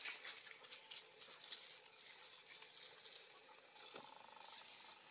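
Faint rustling and light crackling of dry leaf litter and twigs as long-tailed macaques move about, mostly in the first two seconds, over a steady faint high hiss.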